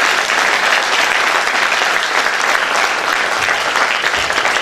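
An auditorium audience applauding steadily, a dense crowd of hand claps that begins to thin out near the end.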